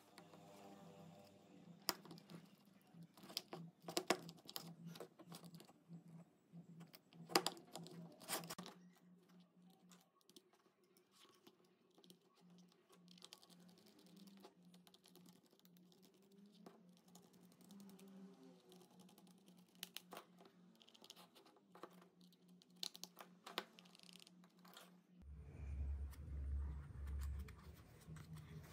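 Light clicks and taps of a drill battery pack's plastic case being handled and its halves fitted together, then a small screwdriver turning the case screws. A low hum comes in near the end.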